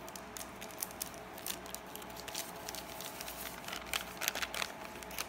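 Small plastic sachet crinkling and rustling as it is handled and squeezed out over a bowl of flour, in scattered light crackles that get busier near the end.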